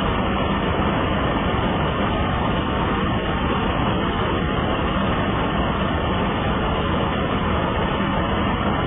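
Large ship's diesel engine running at a steady speed, heard close up as a loud, unbroken drone with a steady low hum.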